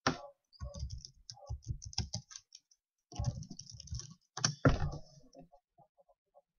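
Computer keyboard typing: two quick runs of keystrokes with a short pause between them, then one louder click a little before the end, followed by a few faint ticks.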